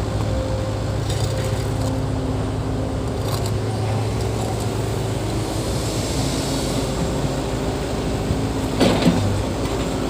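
Diesel engine of heavy earth-moving machinery running steadily, with a short knock near the end.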